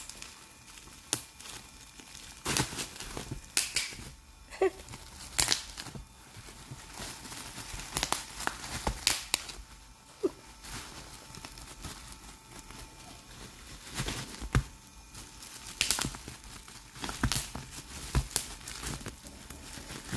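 Plastic bubble wrap crinkling and crackling as a dog plays with it, in irregular bursts of sharp crackles with quieter gaps between.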